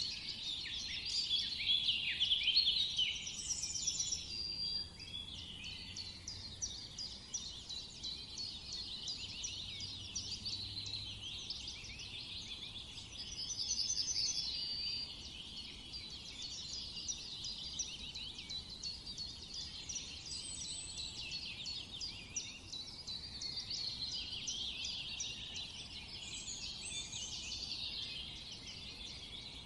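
A dense chorus of many small birds chirping and chattering continuously, with a few short, higher trills standing out now and then.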